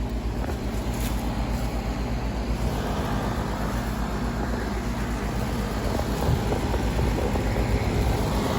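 Residential heat pump outdoor unit running: a steady compressor hum under the whoosh of the condenser fan.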